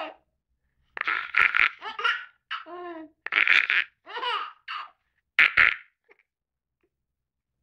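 Baby boy laughing in short bursts at an adult's silly mouth noises, the laughter and noises alternating and stopping about six seconds in.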